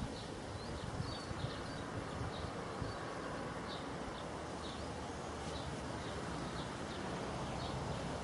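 Steady electrical buzz and hiss from a Variac and low-voltage transformer rig pushing about 50 amps through a coiled vacuum-cleaner extension lead, which is overloaded and smoking. Faint short chirps come and go throughout.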